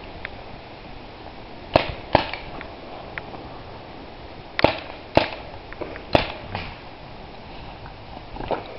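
Paintball markers firing: about seven sharp pops at irregular intervals, several coming in pairs about half a second apart.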